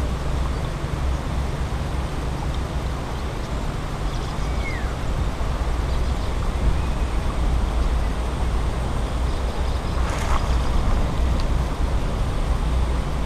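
Steady low rumble of wind buffeting the microphone, with a brief louder noise about ten seconds in.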